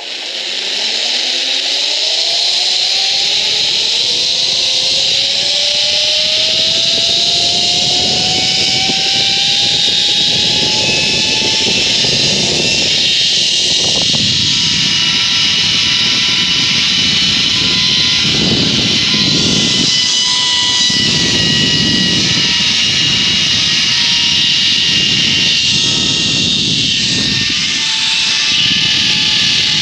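Zip-line trolley pulleys running along the steel cable, a whine that rises in pitch over the first several seconds as the rider gathers speed and then holds steady, over a loud rush of wind on the microphone.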